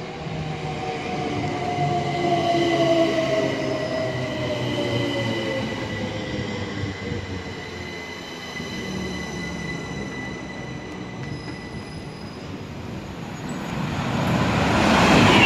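Class 377 Electrostar electric multiple unit running into the platform and braking, its motor whine falling in pitch over the first few seconds, with a high steady squeal that fades as it comes to a stand. Near the end a louder rush of noise builds up as another train approaches on the neighbouring line.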